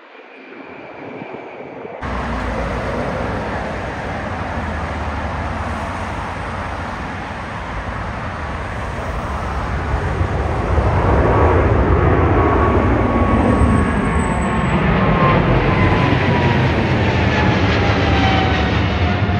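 Twin-engine widebody jet airliner climbing out overhead after takeoff, its engines at full thrust. The roar swells to its loudest about ten seconds in as it passes over. Whining tones then fall in pitch as it moves away.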